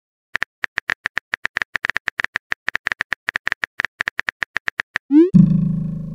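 Chat-app typing sound effect: rapid keyboard-like clicks, about eight a second, for nearly five seconds, then a short rising swoop and a ringing tone as a new message pops up.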